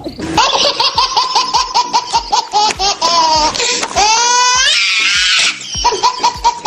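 A baby laughing hard: rapid repeated ha-ha-ha giggles, a rising squeal about four seconds in, a long high shriek, then more quick laughs.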